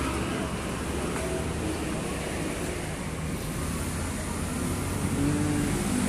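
Steady low engine rumble at idle, with an even hiss over it and no revving.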